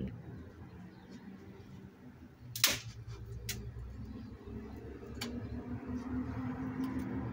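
A wooden stick knocking against something: one sharp, loud knock about two and a half seconds in, then a few lighter knocks, over a low steady hum.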